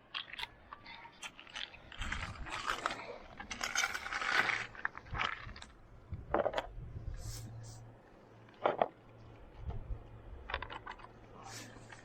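Irregular clinks, scrapes and rattles of hard objects being handled, busiest a couple of seconds in, with a low steady hum joining about halfway through.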